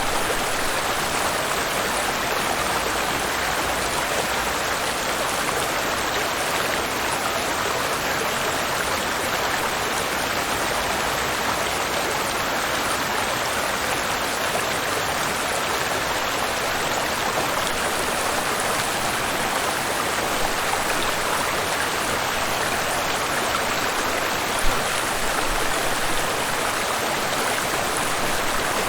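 Waterfall and river water rushing in a steady, even stream, with one brief click near the end.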